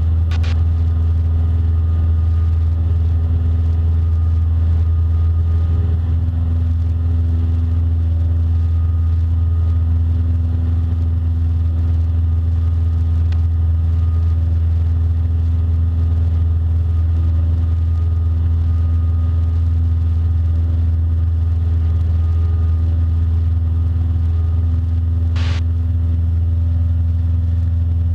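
Cessna Skyhawk's piston engine and propeller heard inside the cockpit, a loud steady drone at full power after takeoff. A single short click sounds about 25 seconds in.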